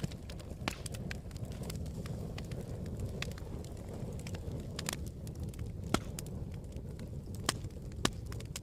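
Campfire burning: a steady low rumble with irregular sharp crackles and pops, the loudest pop about six seconds in and two more near the end.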